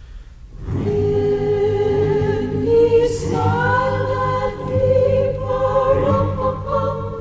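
Background music: choral singing in held, sustained chords, coming in loudly about a second in.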